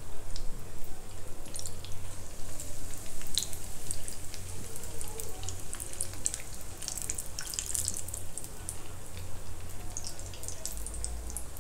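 Hot oil in a wok sizzling, with irregular crackles and pops, as gram-flour-batter-coated potato and pigeon-pea vadas deep-fry.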